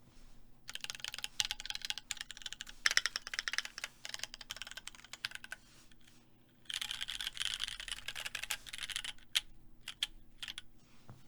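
Typing on a Keychron Q2 mechanical keyboard with SP-Star Magical Girl tactile switches and PBT keycaps: a long run of fast keystrokes, a brief pause, a second fast burst, then a few single key presses near the end.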